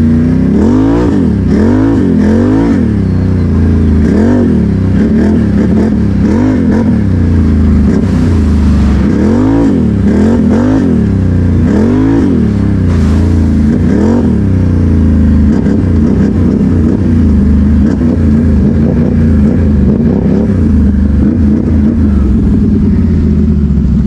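ATV engine running under way, its pitch rising and falling in about ten quick throttle surges over the first fifteen seconds, then holding steadier.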